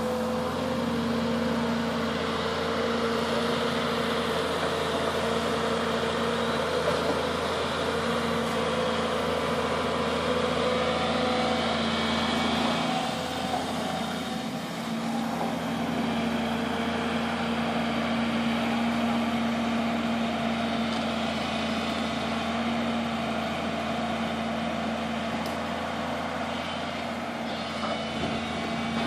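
Volvo EC160BLC crawler excavator's diesel engine running steadily while the machine works, with a brief dip in its note about halfway through.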